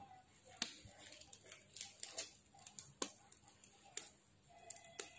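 Faint scattered clicks and rustles from hands working a bundle of nylon monofilament fishing line, binding it tight with a rubber band.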